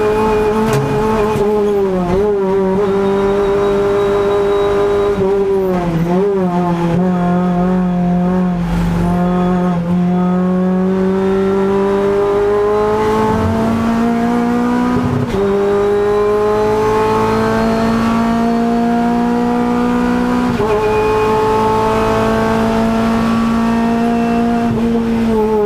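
Renault Clio Cup X85 race car's 2.0-litre four-cylinder engine heard from inside the cabin at racing speed, the revs dipping and wavering through corners, then climbing steadily under full throttle with two upshifts, about fifteen and twenty seconds in.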